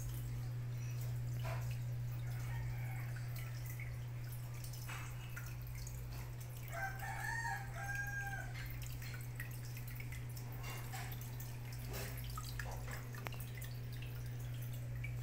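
Submersible aquarium power filter running: a steady motor hum with water dripping and trickling. A rooster crows once, about halfway through.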